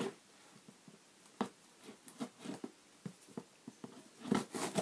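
Cardboard shipping box being wrenched and torn open by hand: scattered sharp cracks, scrapes and crinkles of cardboard, with a louder flurry about four seconds in.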